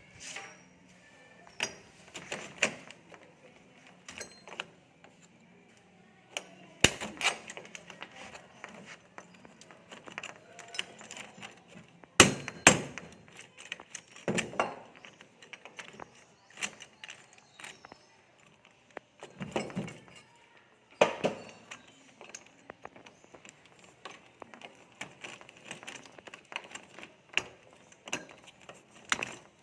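Irregular knocks, taps and clinks of hand carpentry on a wooden door, with wood and tools being handled and struck; the loudest knocks come about 7 s, 12 s and 21 s in.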